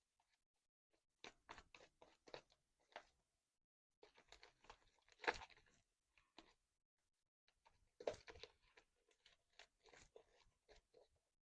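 Slime being squeezed and worked by hand, giving faint sticky clicks and pops in three bursts with short pauses between.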